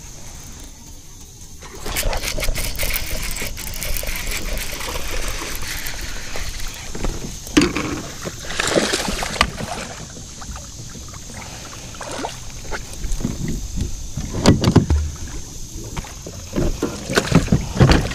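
Water splashing and sloshing beside a fishing kayak, with irregular knocks and rattles from the hull and gear, as a hooked bass is reeled in and netted. It is quiet for the first two seconds, then the splashing comes in uneven bursts, loudest near the end.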